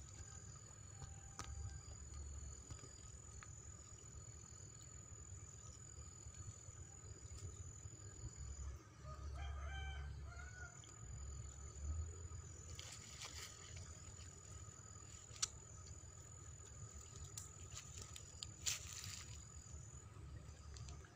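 A rooster crows faintly about halfway through, over a low rumble and a steady high-pitched whine. Two sharp clicks come near the end.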